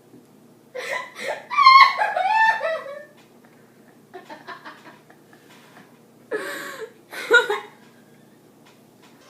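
People laughing in short bursts: a loud fit of laughter about a second in, then quieter bits and another short burst of laughter about seven seconds in.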